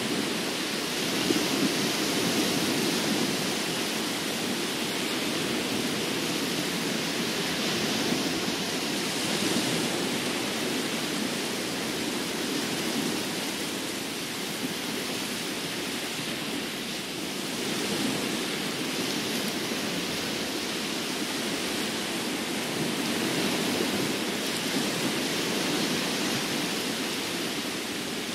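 Sea surf washing onto a sandy beach: a steady rush of noise that swells and eases every several seconds.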